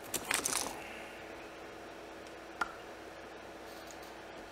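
A plastic e-liquid bottle's cap being worked off by hand: a cluster of clicks and crackles about half a second in, then a single sharp click a couple of seconds later.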